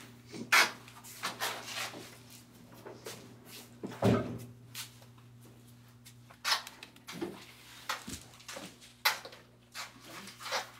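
Irregular soft knocks and clicks, about a dozen scattered through, over a steady low hum.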